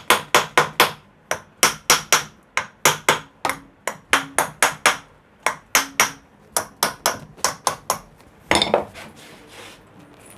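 Hammer tapping repeatedly on an electric jet pump motor's rotor and shaft, in quick runs of several sharp metallic strikes a second, to knock the rotor into place level with the stator stamping. A brief scraping noise follows near the end.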